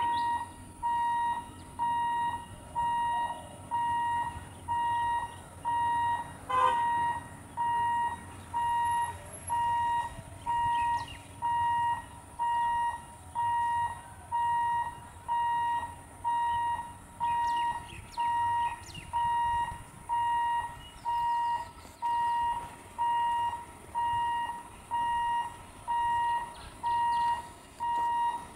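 A short electronic beep repeating evenly about once a second, at the same pitch and loudness throughout. A single sharp click comes about a quarter of the way in.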